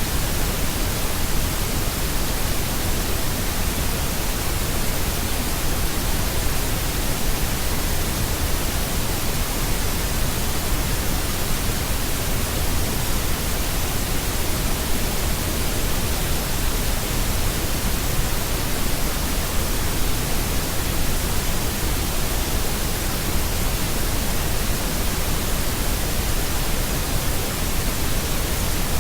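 Steady synthetic white noise: an even, unbroken hiss spread across the whole range of pitch.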